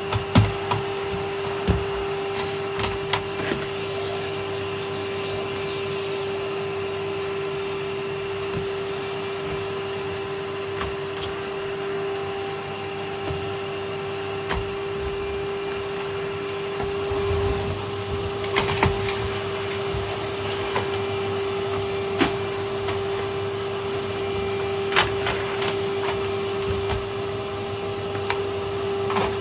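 Vacuum cleaner running steadily with a constant hum and hiss, broken by scattered sharp clicks and knocks.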